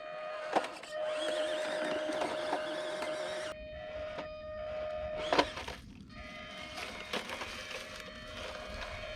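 Electric motor and gearbox of an RC scale truck whining steadily as it crawls over rocks, with a couple of sharp knocks from the truck striking rock, the loudest about five seconds in.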